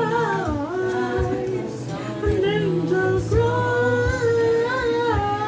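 A pop ballad playing, a woman's voice singing long held notes over a steady beat.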